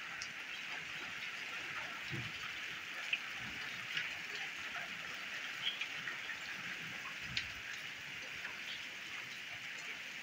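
Heavy rain falling on a tiled courtyard: a steady hiss with scattered sharp ticks of drops striking the paving.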